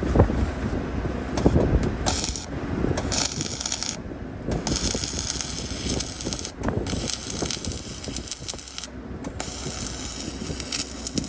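Welding arc hissing and crackling in short runs. It strikes and stops five times, each run lasting half a second to two seconds, over a low rumble of wind on the microphone.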